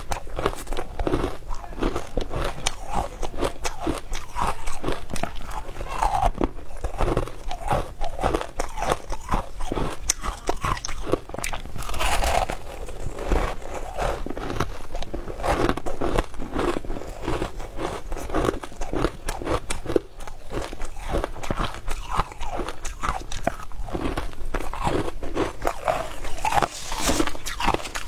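Frozen matcha ice being bitten and chewed: a dense run of sharp crunches, several a second.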